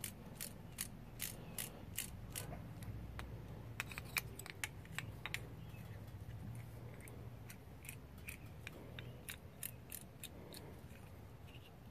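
Micrometer's ratchet thimble clicking in short irregular runs as it is turned down onto a valve follower (bucket tappet) to measure its thickness.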